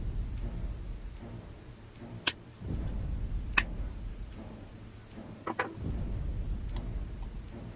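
Flush cutters snipping through an LED strip: two sharp snips about a second and a half apart, then a few light clicks as the cut segments are handled, over low rustling handling noise.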